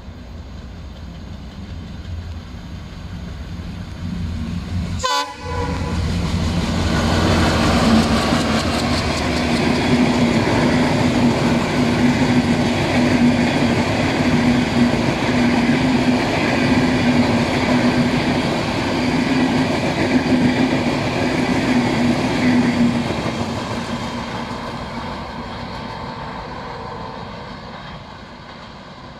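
Express passenger train approaching, then running close past with the rumble and clatter of its coaches over the rails, and fading away near the end. A brief horn sounds about four seconds in.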